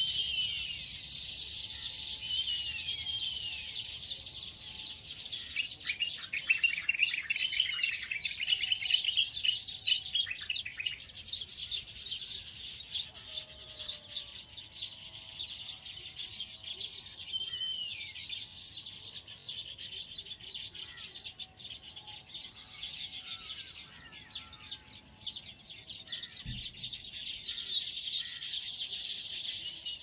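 A colony of baya weavers chattering and chirping around their hanging nests: a dense, continuous mass of high, overlapping twitters, busiest and loudest from about six to eleven seconds in.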